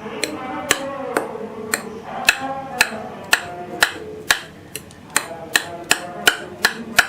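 A metal fork poking holes in a soft sponge cake, its tines clicking against the bottom of a glass Pyrex bowl about twice a second.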